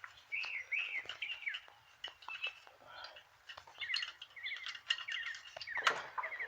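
Small birds chirping: a string of short arched calls, then quick runs of repeated high notes, with a few faint clicks among them.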